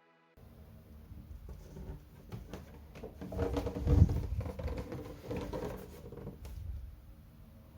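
Close handling noise: irregular light taps, clicks and rustles over a low rumble, swelling to a thump about four seconds in.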